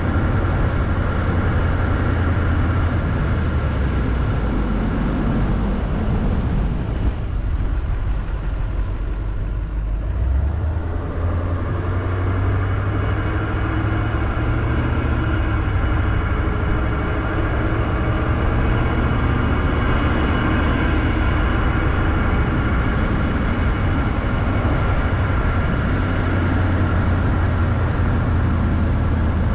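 Vehicle driving on a paved road: a steady low drone of engine and tyre noise, easing for a few seconds about a third of the way through.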